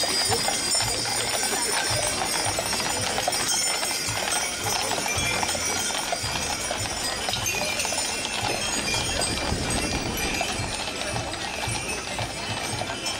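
Hooves of a team of draught horses clip-clopping on asphalt as they pull a heavy brewery wagon loaded with wooden beer barrels, over a background of crowd chatter.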